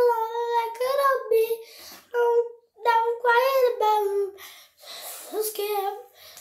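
A young girl singing unaccompanied in short held phrases, with brief breaks between them.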